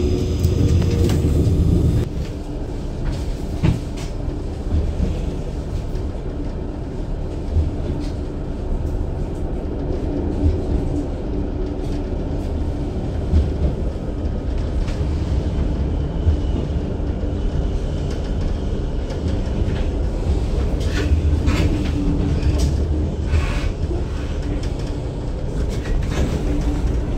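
Tram running on its rails, heard from inside the passenger cabin: a steady low rumble with scattered clicks and knocks from the wheels on the track. It is louder for the first couple of seconds, and a run of sharper clatter comes near the end.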